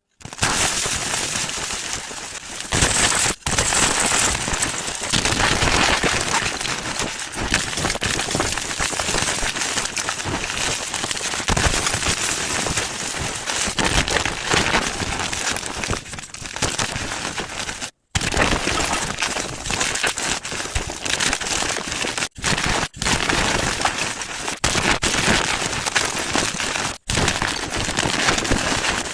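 Gym chalk being crushed: a dense, continuous crunching and crackling, broken by a few sudden brief dropouts.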